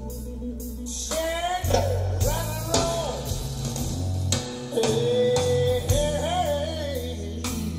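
A song with a singing voice over guitar and a steady bass line, played back through large hi-fi loudspeakers in a listening room.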